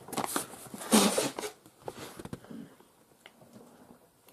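A sheet of paper rustling as a letter is handled and passed over. The rustling is loudest in the first second and a half, then thins to a few soft clicks and knocks.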